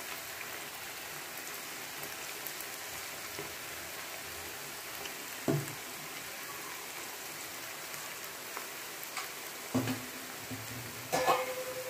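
Batter-coated cauliflower pieces deep-frying in hot oil in a pan, a steady sizzle, with a few brief knocks about halfway through and near the end.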